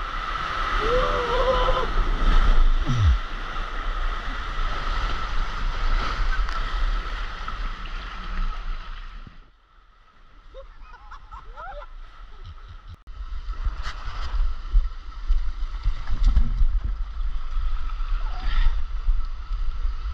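Water rushing and sloshing with wind on the microphone during a ride down a water slide. The noise drops away for a few seconds about halfway through, then comes back as loud.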